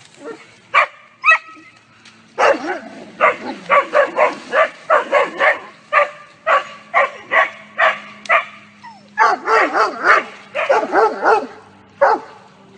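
Dogs barking in rapid runs at a kangaroo: two single barks in the first couple of seconds, then barks coming two or three a second from about two and a half seconds in, packed most closely together about ten seconds in.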